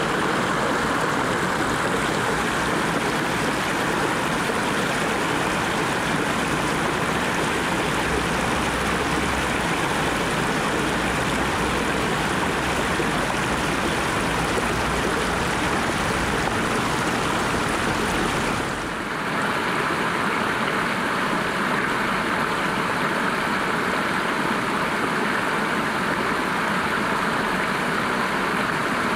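Shallow stream water rushing over stones in a steady wash. About two-thirds of the way through it dips briefly, and afterwards it carries less low rumble.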